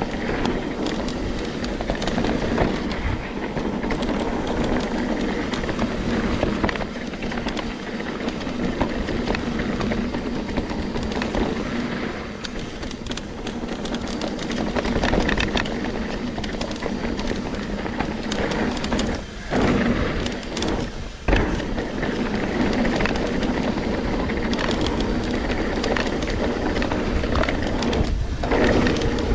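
Trek Slash 9.8 full-suspension mountain bike ridden fast down a dirt bike-park trail: continuous tyre rumble and rattling of the bike over the rough ground. The noise drops out briefly a couple of times about two-thirds of the way through and once near the end.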